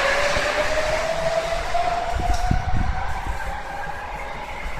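Sapporo subway train accelerating away from the platform into the tunnel: the electric motors' whine rises steadily in pitch over a fading rumble, with a few low thumps about halfway through.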